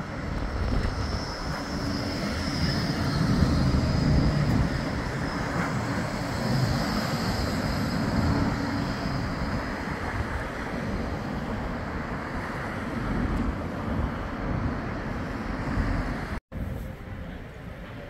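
Bombardier Flexity 2 tram passing close by, a steady rumble with a faint high whine above it, loudest a few seconds in, mixed with wind rumble on the microphone. The sound drops out briefly near the end.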